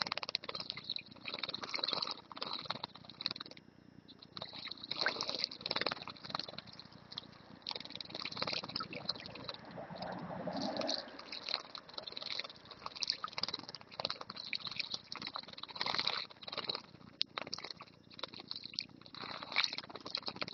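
A European greenfinch and a goldfinch bathing in a shallow stone birdbath: runs of quick splashes and wing-flutters in the water, coming and going in bouts.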